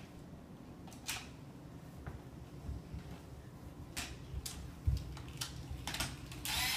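Scattered light clicks and a few soft thumps as a toy Hot Wheels car is handled on a hardwood floor. Near the end a loud, steady whir starts up: the toy car's small electric motor running.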